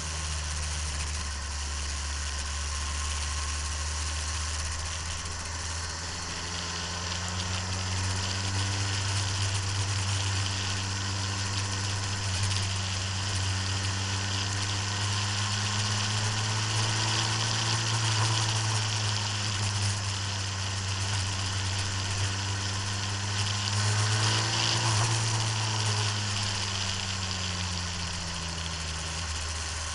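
Motorcycle engine heard from an onboard camera with heavy wind rush over the microphone. The engine note climbs and falls with the throttle, rising to two peaks, about midway and again later, then dropping away.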